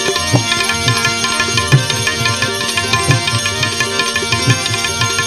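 Instrumental interlude of a Gujarati devotional bhajan: tabla playing a steady rhythm under sustained held chords.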